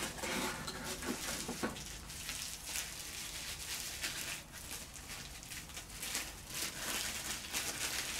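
Plastic bubble wrap crinkling and rustling as it is handled and unwrapped, a steady crackle of many small clicks.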